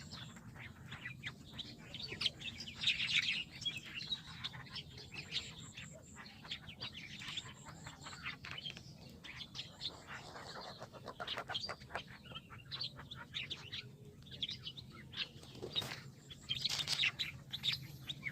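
Small birds chirping, many short quick chirps overlapping throughout.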